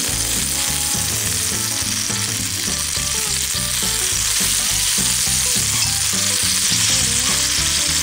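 Bacon-wrapped camembert sizzling steadily in hot oil in a skillet, its cheese melted through.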